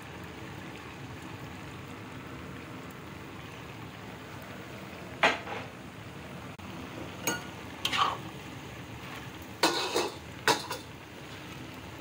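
Sauce in a wok simmering with a steady sizzle while a metal utensil scrapes and clinks against the pan as the braise of gaofu, tofu and mushrooms is stirred. The loudest clink comes about five seconds in, and several more follow over the next six seconds.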